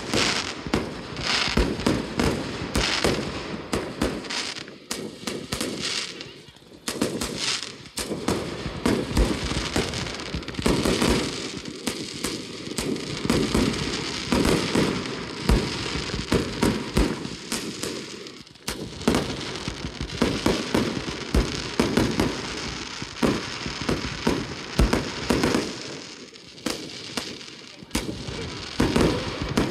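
Fireworks display: a dense, continuous run of launches and aerial shell bursts, with bangs following one another irregularly, several a second, amid crackling.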